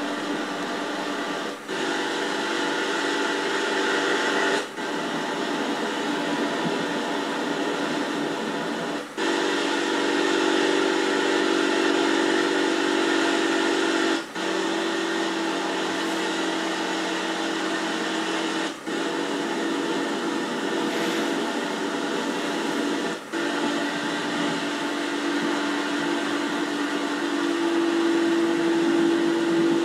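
Honda BF15 outboard motor running steadily with a whine, recorded on Super 8 sound film. The sound drops out briefly about every three to five seconds, and the pitch of the whine shifts between stretches.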